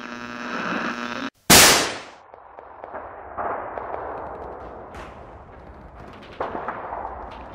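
End-card sound effects: a humming tone swells and cuts off, then a single loud gunshot-like blast about a second and a half in, followed by a rumbling, ringing tail with a few sharp cracks.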